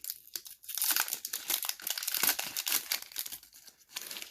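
Foil wrapper of a Pokémon trading-card booster pack crinkling and tearing as it is pulled open, a dense run of crackles that is busiest in the middle.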